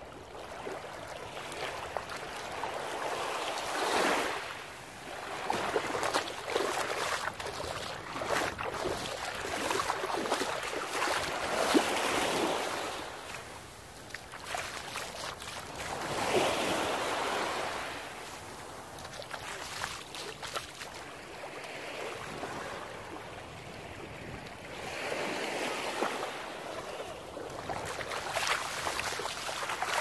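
Small sea waves breaking and washing up a sandy beach, the surf swelling and fading every few seconds.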